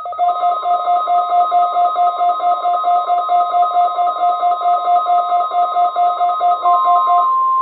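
NOAA Weather Radio's 1050 Hz warning alarm tone, a steady single-pitch tone, sounding for its weekly test under a weather radio receiver's fast two-pitch warbling alert. The warble stops about seven seconds in, leaving the steady alarm tone on its own.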